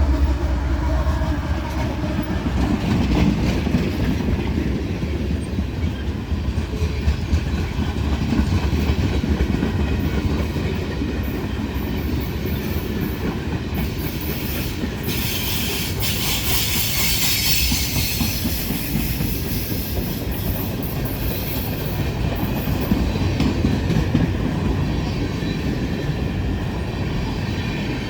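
Freight train rolling past, its wheels clicking over the rail joints in a steady rumble. About halfway through comes a high-pitched wheel squeal lasting a few seconds.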